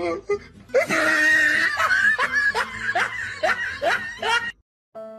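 A person laughing hard in a run of short, rising bursts, about two or three a second, that cuts off abruptly near the end.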